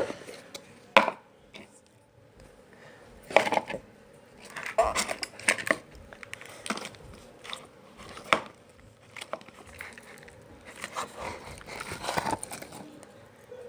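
Slime being squished and worked by hand, giving irregular bursts of clicking and crackling with short quiet gaps between.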